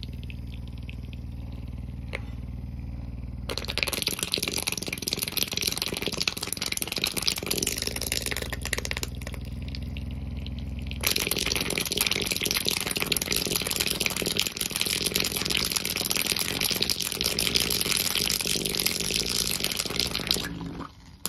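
Clitoral suction toy's small motor humming, then, from about three seconds in, water churning and splashing as its pulsing suction nozzle is held in a bowl of water. The water noise gets louder about halfway through and stops abruptly near the end.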